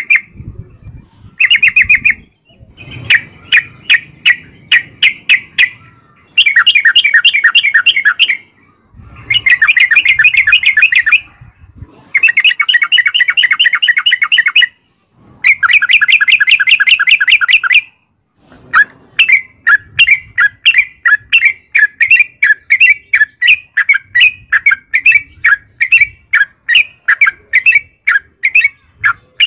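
Yellow-vented bulbul (trucukan) singing loudly in long, rapid rattling phrases of quick repeated notes, each a few seconds long with short pauses between. In the last third the song breaks into a looser run of separate chirps, about two a second.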